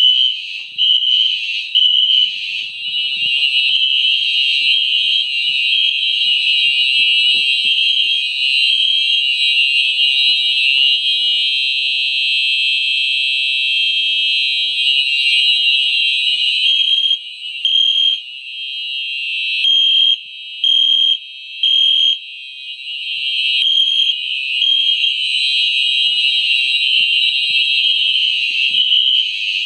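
Fire alarm horns sounding together in a system test: a loud, steady, high-pitched blare from several devices at once. Some devices pulse on and off in beats about a second apart, near the start and again about two-thirds of the way through.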